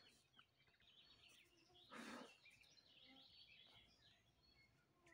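Near silence with faint birdsong, a few short chirps here and there, and a brief rustling noise about two seconds in.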